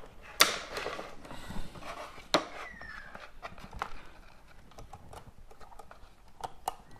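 Tools and small plug parts clicking and tapping on a workbench as they are put down and handled, with two sharper knocks in the first few seconds and lighter, scattered clicks after.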